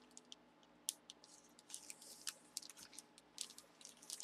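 Faint crinkling and rustling of a clear plastic bag being handled, in scattered short crackles.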